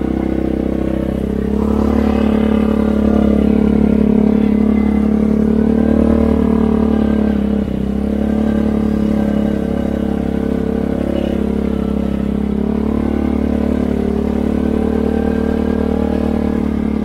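Old four-wheeler's engine running under way with a steady note. The revs rise a little about two seconds in and dip briefly near the middle. It runs a bit finicky, which the owner puts down to the back pressure from its aftermarket muffler.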